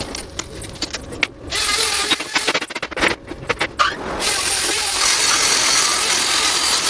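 Workshop tool noise: a run of sharp metallic knocks and clicks, then from about four seconds in a steady, loud mechanical noise.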